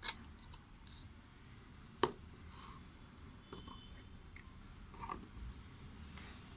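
Faint handling noises from slime-making: scattered light taps and clicks, with one sharp click about two seconds in.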